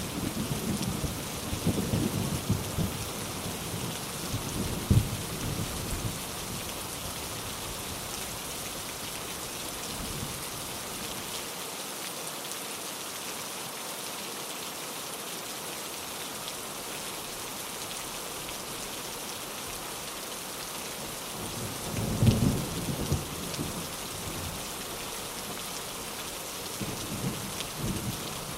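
Steady rain with thunder. Low rumbles in the first few seconds die away, a louder rumble comes about 22 seconds in, and a shorter one comes near the end.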